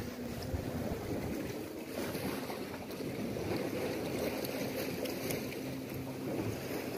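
Sea wash and wind buffeting the microphone: a steady low rumble, with a faint steady hum underneath.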